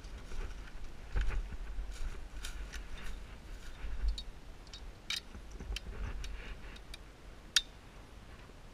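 Scattered small clicks and rustles over a low rumble of wind on the microphone, with one sharper click near the end.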